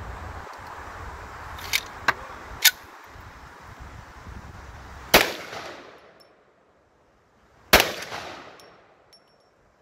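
Two shots from a .50-calibre Desert Eagle pistol, about two and a half seconds apart, each with a long echo trailing off. Three shorter, sharp cracks come earlier, about two seconds in.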